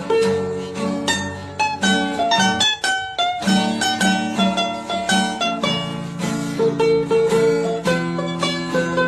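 Background music: a plucked string instrument picking a quick melody over strummed chords.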